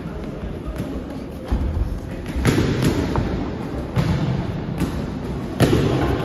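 Boxing gloves thudding as punches land during sparring: six or seven irregular thumps, the loudest about two and a half seconds in and again near the end.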